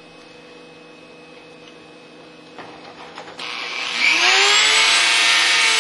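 Variable-speed Dremel rotary tool with a cutoff wheel switched on about three and a half seconds in: a loud hiss with a whine that rises in pitch as it spins up, then holds steady.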